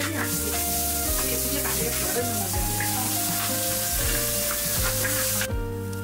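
Food sizzling in hot oil in a large wok and being stirred with a metal spatula; the sizzle cuts off about five and a half seconds in. Background music plays throughout.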